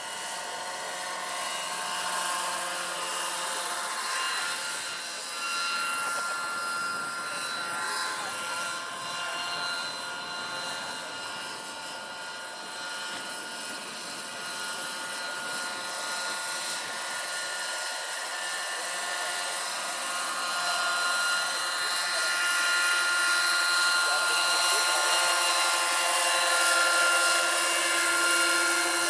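Electric 700-size scale model helicopter of a Lockheed XH-51 in flight: rotor noise with a steady whine from its electric drive. It grows louder near the end as the model passes close.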